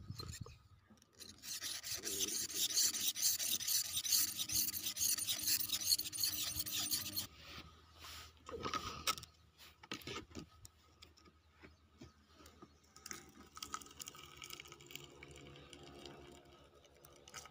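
A rod scraping and grinding inside a small clay pot, breaking up the thin 3–4 mm crust of burnt sulfur over the mercury. A dense rasping runs for about six seconds and stops suddenly. Scattered lighter knocks and scrapes follow.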